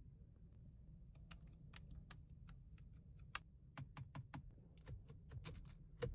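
Fingers tapping and clicking on a car's steering wheel trim and controls: a run of light, irregular clicks, like typing, coming thicker in the second half.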